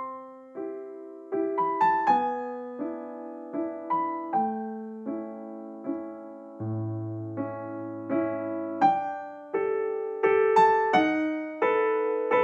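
Background piano music: a gentle melody of single notes and chords, each struck and then fading, at an unhurried, even pace.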